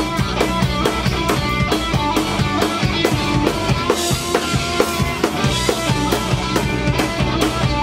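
Punk rock band playing live: electric guitar and bass over a drum kit keeping a steady beat.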